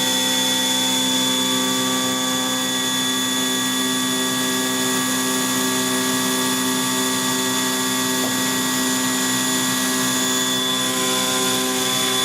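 Milling spindle of a Kinetic K4000 CNC table running while it mills a shape: a steady machine whine made of several constant tones, one of them high-pitched.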